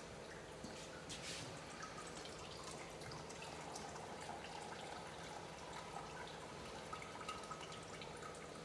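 Faint, irregular drips of residual water falling from a reverse-osmosis purifier's drain tube into a plastic jug once the faucet has been shut off.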